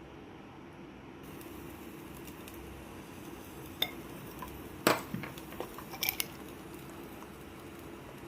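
Glassware clinking: three short sharp clinks about a second apart, the loudest near the middle, with a few faint ticks after it.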